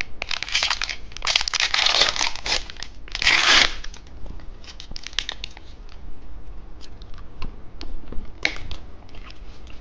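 Plastic wrapper of a cheese-stick candy being torn open and crinkled, in several long rustling bursts over the first four seconds, the loudest about three and a half seconds in, then scattered small clicks and crackles.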